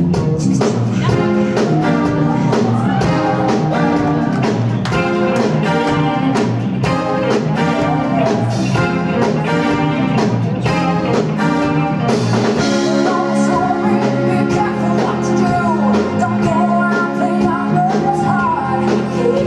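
Live band music: a drum kit keeps a steady beat under keyboard chords, with a singing voice. About twelve seconds in the drumming eases off and held chords carry the tune.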